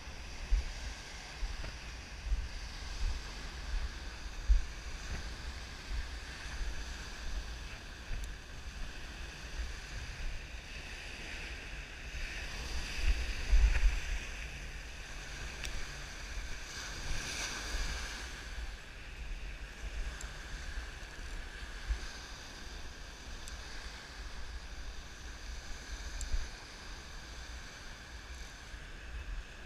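Wind buffeting the microphone in uneven gusts, strongest about halfway through, over the wash of waves on the beach, with a faint steady high-pitched tone underneath.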